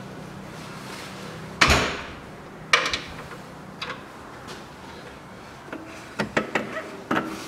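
Clunks and clicks of an engine cooling fan and its viscous coupling being handled and fitted onto its mounting studs: a sharp clunk about a second and a half in, another about a second later, then a run of light clicks near the end.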